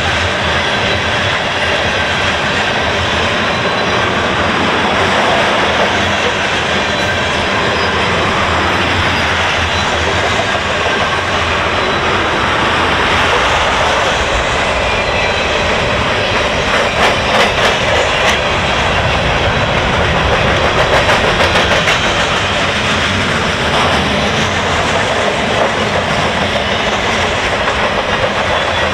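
CN freight train's cars (tank cars, covered hoppers and boxcars) passing at about 39 mph: a steady loud rumble and rattle of steel wheels on rail, with a run of rapid clicks a little past halfway through.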